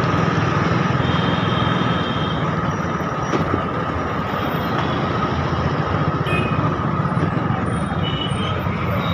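Dense road traffic heard from a motorcycle: engines of motorcycles, an autorickshaw and a bus running steadily with a low rumble, and a few brief high beeps about a second in and again near the end.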